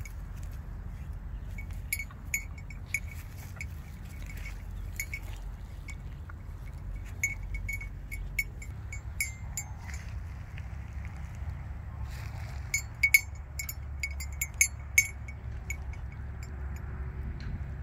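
A small cattle bell worn on a cow's neck clinking irregularly as the animals move, in scattered light metallic clinks that come thickest near the end, over a steady low rumble.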